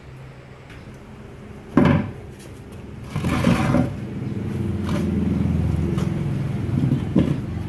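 Heavy metal generator stator housing handled on a concrete floor: a sharp knock about two seconds in, then a sustained scraping rumble as it is shifted and turned over, with another knock near the end.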